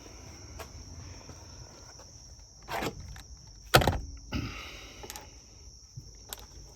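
A few separate knocks and clunks, the loudest about four seconds in, over a steady high chirring of crickets.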